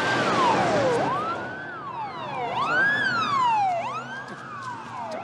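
Emergency vehicle siren wailing, each cycle rising quickly and then falling slowly, about every second and a half. A second wailing siren joins about halfway through, slightly out of step with the first.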